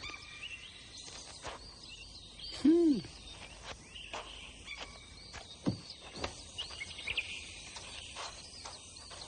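Forest ambience with small birds chirping now and then over a faint steady background. About three seconds in, a single short low call rises and falls in pitch.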